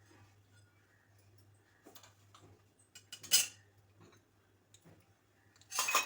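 A spoon clinking against metal kitchen vessels a few times. The loudest clink comes about three seconds in and a quick cluster comes near the end, as whole spices are put into a pan one kind at a time for dry-roasting.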